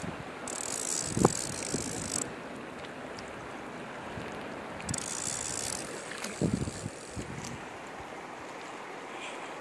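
Fishing reel ratcheting in two spells, one of nearly two seconds and a shorter one about five seconds in, as line is worked on a hooked steelhead, over the steady rush of the river. Two dull knocks are heard, about a second in and again past six seconds.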